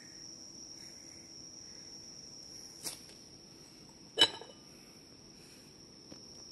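A quiet room with a steady high-pitched whine, a soft tap about three seconds in, and one sharp ringing clink of tableware about four seconds in.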